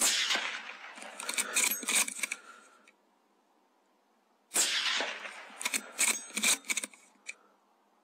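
Two rifle shots from a CZ 527 bolt-action in .223 Rem, about four and a half seconds apart, each followed by a few sharp metallic clicks as the bolt is worked for the next round.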